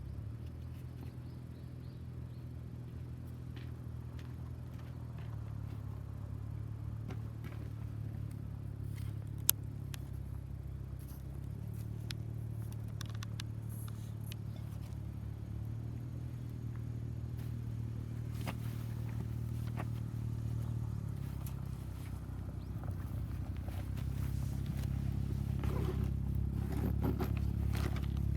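Wood fire burning in a homemade tower-type fire pit: a steady low rumble with scattered crackles, a sharp pop about nine and a half seconds in, and a run of crackles and clicks near the end.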